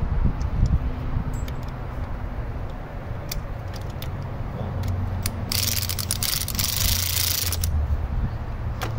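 Socket ratchet tightening a battery cable terminal nut: scattered metallic clicks, then about two seconds of rapid ratcheting about five and a half seconds in. A steady low rumble sits underneath.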